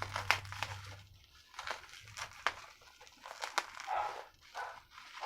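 Plastic packaging wrap crinkling and crackling as it is cut and pulled off a cable, in irregular sharp snaps and short rustles.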